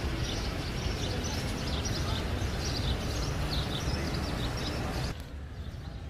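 Many small birds chirping over a steady low outdoor rumble. About five seconds in, the sound changes abruptly to a quieter background with only a few chirps.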